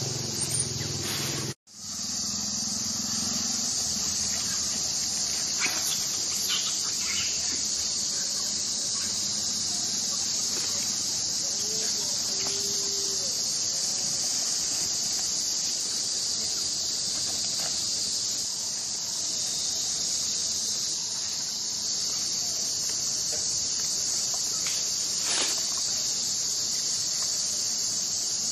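A steady, high-pitched chorus of insects droning without a break. It cuts out for a moment about a second and a half in, then carries on.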